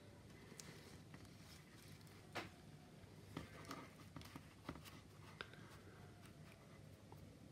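Near silence with a handful of faint, short clicks and rustles as gloved fingers and tweezers handle masking tape and press it onto the plastic fuselage of a model aircraft kit.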